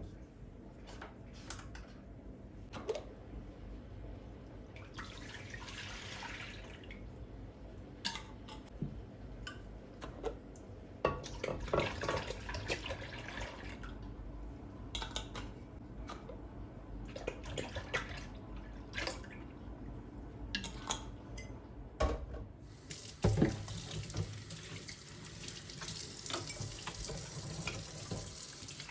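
Tap water running into a sink in short spells, then steadily for the last few seconds, among scattered clicks and knocks.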